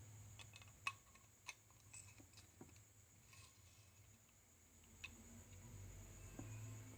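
Near silence with a few faint, sharp clicks and taps of small parts being fitted into a Wismec R80 vape mod's casing by hand.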